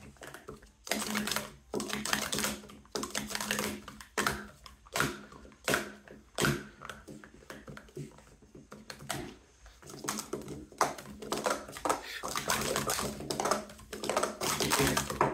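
Speed Stacks plastic sport-stacking cups being stacked up and down at speed on a stacking mat: fast runs of clattering plastic clicks and taps with brief pauses, busiest in the last third.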